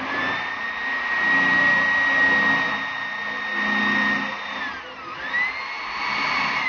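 Corded electric drill working on the louver's metal frame, its motor whine holding steady for about four and a half seconds, then winding down and spinning back up about five seconds in.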